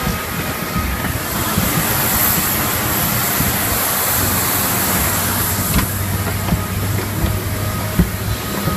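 Jet aircraft turbine noise on the airport apron: a steady high whine over a rumble. A few sharp thuds come in the second half, footsteps on the metal boarding stairs.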